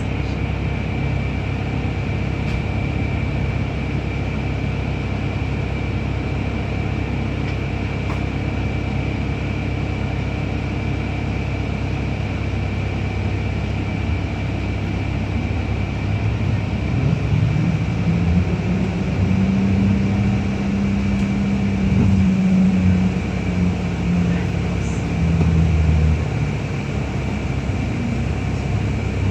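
Inside a New Routemaster hybrid double-decker bus: steady drivetrain rumble under a constant thin high whine. From about halfway through, the diesel engine's note climbs, holds, and sinks back over roughly ten seconds.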